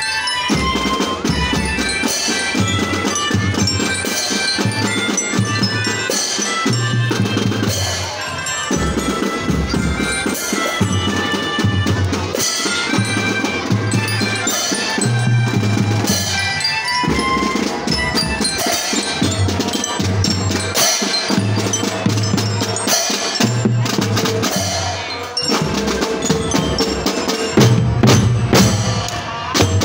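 School drum band playing a marching tune: melodicas (pianikas) carry the melody over a steady beat on bass drums. The drum beat drops out briefly a few times.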